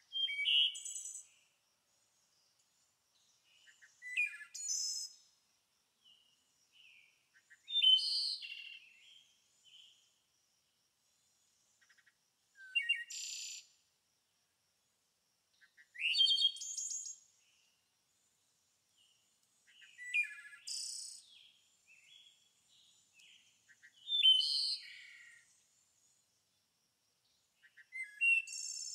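A songbird singing short, separate high-pitched phrases, one about every four seconds, with quiet between them.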